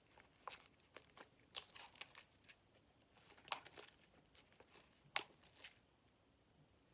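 Faint, scattered sticky clicks and crackles of glitter slime being handled and pulled from a bowl by hand, with two sharper pops about three and a half and five seconds in.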